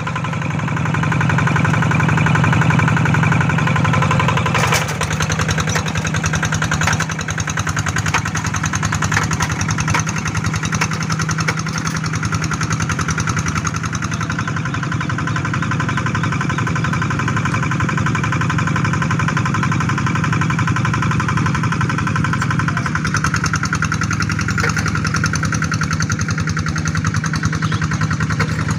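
Kubota RD85 single-cylinder diesel engine of a two-wheel hand tractor running steadily under load while pulling a plow through mud, a fast even chugging beat. It is louder for the first few seconds, then a little softer after a brief knock about five seconds in.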